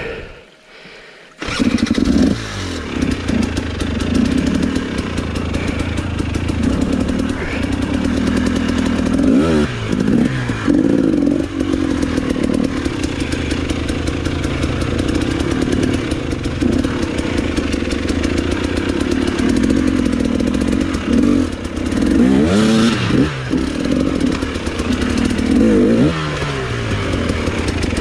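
KTM enduro motorcycle engine running at low revs, with several quick rises and falls in pitch as the throttle is blipped. It comes in suddenly about a second and a half in, after a quieter start.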